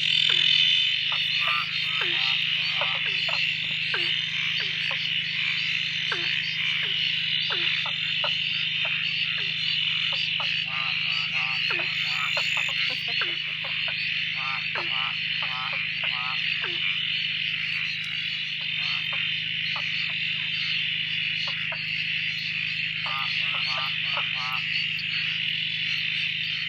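Frog chorus at a dam, woken by several days of rain: a dense, steady, high-pitched calling from many frogs, over which individual frogs give repeated lower calls, many falling in pitch (a 'wah' sound). Loud, almost deafening.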